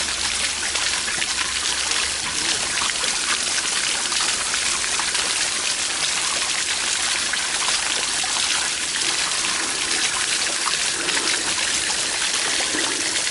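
Water rushing and spraying out of the seams of a clear acrylic flow-test rig under increased flow, a steady splashing hiss without breaks. The rig is leaking at its joints.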